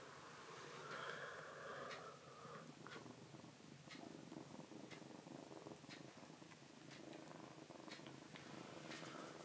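A kitten purring faintly, with scattered soft clicks and light fabric rustling.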